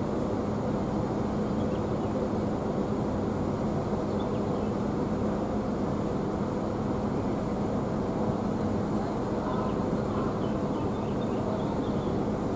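Idling diesel bus engine: a steady, even drone with a low hum that holds the same pitch throughout.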